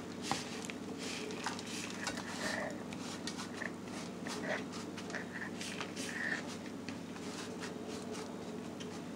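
Faint scraping and light tapping of a spatula against a mixing bowl as crumbly oat topping is scraped out and drops into a baking pan, a scatter of small scrapes and clicks over a steady low background hum.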